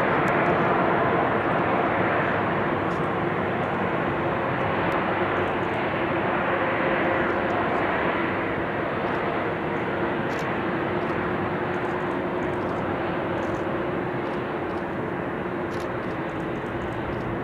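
Airbus A380's four Rolls-Royce Trent 900 turbofans running at low thrust as the airliner taxis past: a steady jet roar with a held hum, slowly growing a little fainter.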